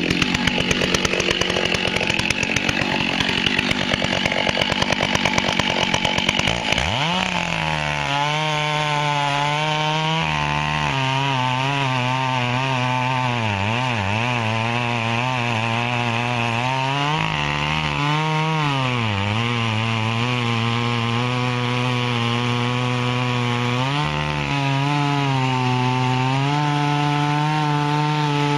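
Big two-stroke Stihl chainsaw, just started, running at a fast idle. About a third of the way in it drops suddenly to a lower idle whose pitch wavers and sags several times before settling.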